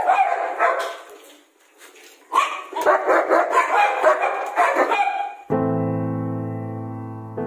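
A young German Shepherd barking in two quick bouts, with a short pause between them. About five and a half seconds in, the sound cuts off abruptly and slow piano music begins, with sustained chords ringing out and a new chord struck near the end.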